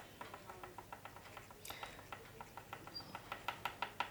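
Oil pastel stick tapping dots onto paper: a quick, even run of light taps, about five a second, louder over the last second.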